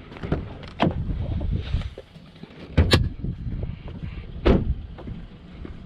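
Car body latches and panels being worked to open the hood of an Audi S5: a few sharp clunks, the loudest about three seconds in and again about a second and a half later, over a low rumble.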